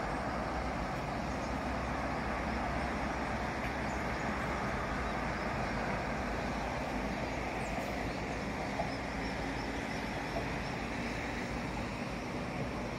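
Steady outdoor background noise, an even rumble and hiss like distant road traffic, with a faint low steady hum joining in the second half.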